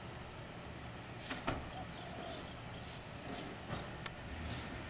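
Steady outdoor background noise with a few faint clicks and taps scattered through it.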